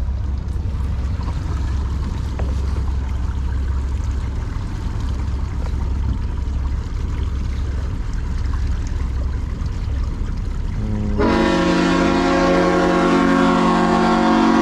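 Boat motor running with a low steady rumble. About eleven seconds in, a loud multi-tone horn starts with a brief rise in pitch and holds as one long steady blast.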